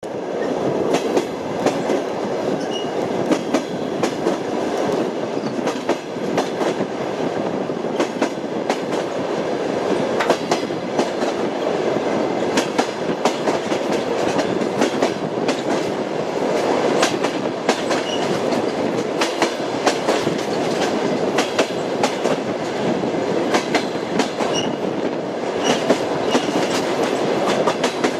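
Railway car wheels rolling on the track: a steady rumble with frequent irregular clickety-clack knocks as the wheels cross rail joints.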